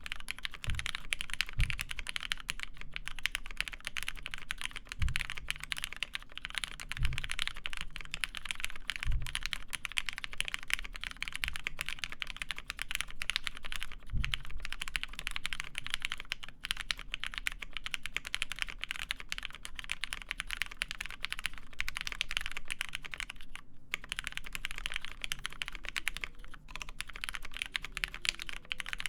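Continuous typing on a Matrix Lab 8XV2.2 mechanical keyboard with lubed Cherry MX Black linear switches, a full aluminum plate and GMK keycaps: a dense run of clacking keystrokes, with a handful of deeper knocks in the first half.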